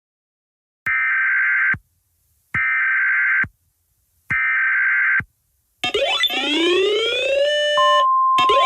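Emergency Alert System data header: three identical harsh, buzzy bursts of just under a second each, about 1.7 seconds apart. These are the digital SAME tones that open an alert. They are followed by a synthesized alert tone sweeping upward in pitch and repeating, and a steady high tone comes in near the end.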